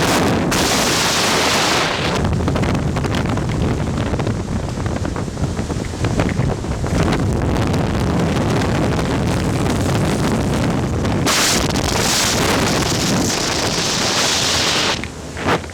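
Steady rush of air driven by a VOD-40 axial mine ventilation fan, with heavy wind buffeting on the microphone. The hiss gusts harder near the start and again for a few seconds near the end.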